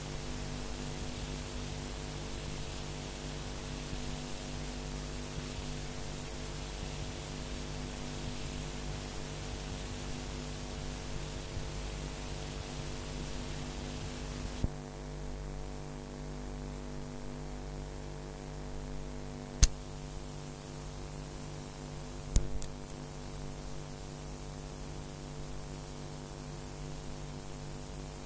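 Faint steady electrical mains hum with hiss from the recording chain and no programme sound. The hiss drops about halfway through at a small click, and two sharp clicks follow some seconds later, about three seconds apart.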